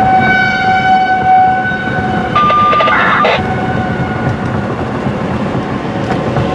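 Radio paging tones from a scanner speaker: a steady electronic tone, a short higher tone about two and a half seconds in with a brief crackle, then the first tone again, fainter.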